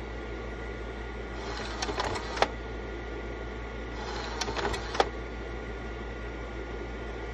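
Vivitar 3000AF slide projector's cooling fan running steadily, while the slide-change mechanism cycles twice, about a second and a half in and again about four seconds in. Each cycle is a short mechanical rattle ending in a sharp click.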